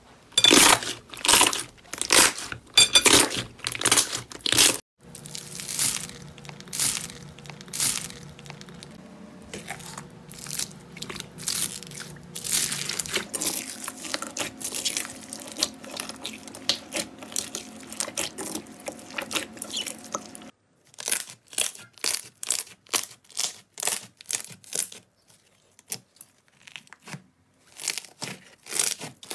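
Slime being squeezed, pressed and kneaded by hand, making sticky crackles and pops in quick succession, with some of it worked with foam beads mixed in. The sound changes abruptly twice as one batch gives way to another. A faint steady hum lies under the middle stretch.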